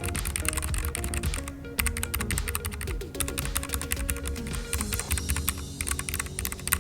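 Fast, continuous typing on a Keychron K3 low-profile mechanical keyboard fitted with red linear switches, a dense run of keystrokes with no click from the switches.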